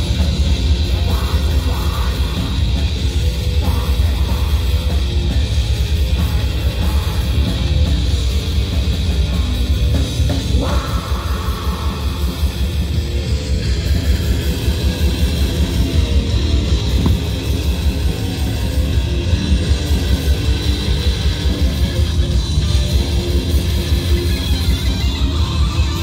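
Black metal band playing live at full volume: distorted electric guitars, bass and a drum kit in a dense, unbroken wall of sound.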